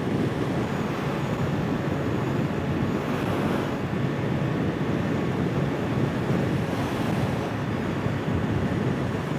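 Kawasaki Z H2 SE's supercharged inline-four running steadily at highway cruising speed, mixed with wind rushing over the rider's microphone. The level holds steady throughout.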